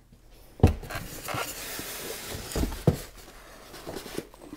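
Styrofoam packing around a heavy sewing machine rubbing and knocking as the machine is lifted out of its box: a knock about half a second in, then a steady rustle and scrape of foam with a couple of smaller knocks.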